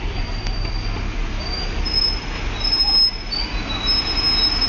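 High-pitched squealing in several long drawn-out notes, growing stronger from about a second and a half in, as a red car is driven against a white SUV and the two vehicles grind together under the push. A low steady rumble runs underneath.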